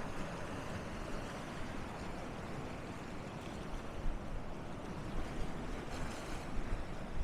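Sea surf washing steadily, with wind rumbling on the microphone; a brief louder hiss of water about six seconds in.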